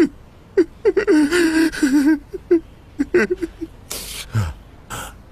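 A man sobbing in grief: short choked cries, a drawn-out wavering wail about a second in, and sharp gasping breaths near the end.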